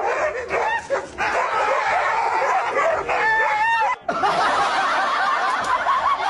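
Several dogs barking and whining, with short yelping calls that rise and fall in pitch; about four seconds in the sound drops out for a moment and returns as a busier, overlapping chorus.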